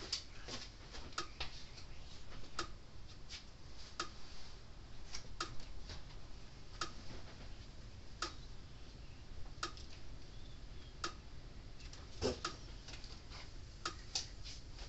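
Red Snap'r 25-mile electric fence energizer, opened up with a replacement circuit board fitted, clicking at an even pace about once every 1.4 seconds as it fires its pulses: the sign that the repaired unit is working. Fainter ticks fall between the main clicks.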